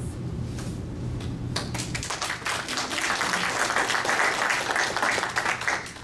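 Audience applauding: many hands clapping at once, starting about a second and a half in, building, and stopping near the end.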